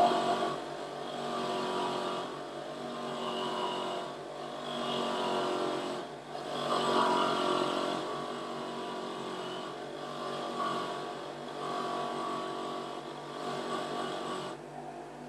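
A homemade motor-driven shop tool running while it strips old paint off a metal part. Its pitch and loudness sag and recover every few seconds as the part is pressed against it.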